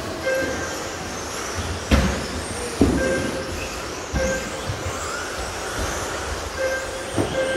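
Electric radio-controlled model trucks racing on an indoor carpet track: high motor whines rising and falling, with sharp clatters from the trucks landing and hitting the track edges, the two loudest about two and three seconds in. Short beeps of the lap timer sound several times.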